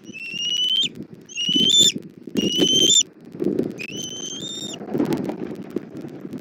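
Bald eagle calling: four drawn-out, high, slightly rising calls in quick succession over the first few seconds, with wind rumbling on the microphone.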